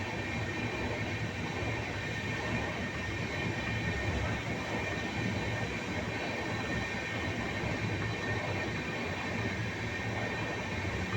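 Moving train running steadily: an even rushing rumble, deepest at the low end, with a few faint steady high tones over it.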